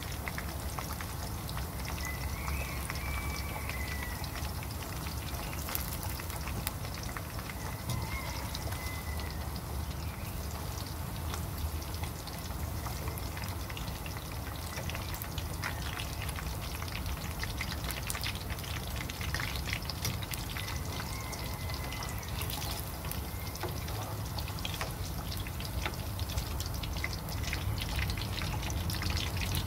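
Onion slices frying in hot oil in a wok: a steady sizzle dense with small crackles and pops, over a steady low rumble. Meanwhile the fried slices are scooped out of the oil with a slotted spoon.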